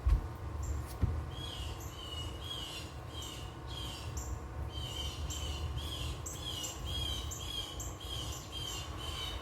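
A bird calling over and over, one short chirp about twice a second. There are two low thumps in the first second.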